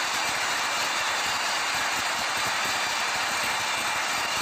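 Large multi-cylinder marine diesel engine running steadily in a ferry's engine room: a loud, even mechanical din with little bass and a few faint whining tones above it.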